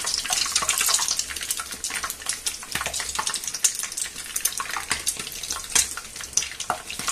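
Milk-and-egg-soaked bread slices frying in hot oil in a frying pan: a steady sizzle dotted with many small crackling pops.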